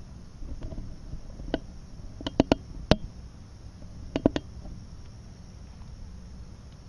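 Crickets chirring steadily, with a handful of sharp clicks in two quick clusters, around two and four seconds in.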